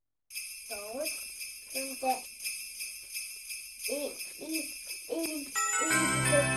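Sleigh bells shaken in a steady beat, about four shakes a second, with a few short notes that slide up and down, opening a Christmas music track. Near the end the full backing comes in with a steady bass.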